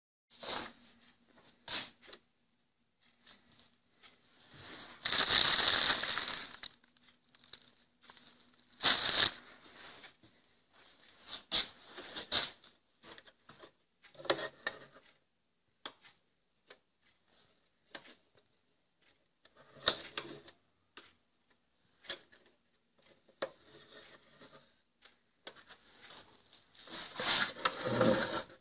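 Scattered handling noises: clicks, knocks and rustling scrapes, the longest about five to seven seconds in and again near the end. A faint steady hum runs under the first nine seconds.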